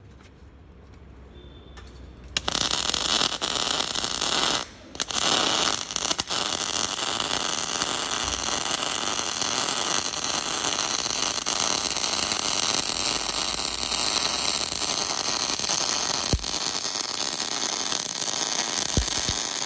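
MIG welding arc on pipe: a dense, steady crackling hiss that strikes up about two seconds in. It stops briefly near five seconds, restarts, and runs on.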